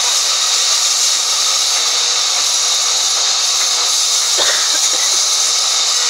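Sawmill band saw cutting lengthwise through a mahogany log, a loud, steady high hiss of the blade in the wood.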